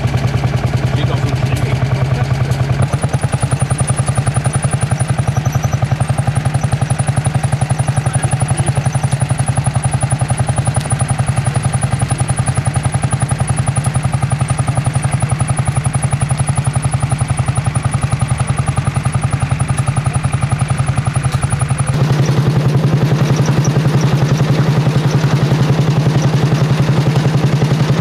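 Lanz Bulldog tractor's single-cylinder hot-bulb two-stroke engine running under load, a fast, steady chugging. The engine note changes abruptly about three seconds in and again near the end.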